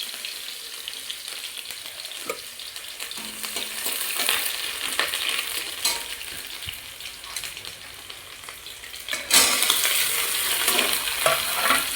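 Onions frying in hot oil in a pan: a steady sizzle with occasional taps and scrapes of a spatula stirring. The sizzle jumps louder about nine seconds in.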